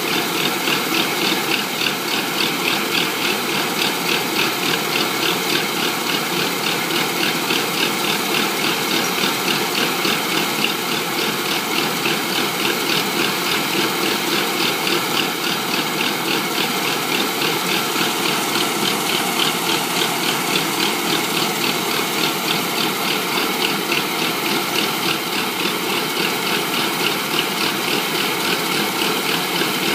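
Rice combine harvester running steadily: a continuous engine and machinery noise with an even, rapid pulsing clatter.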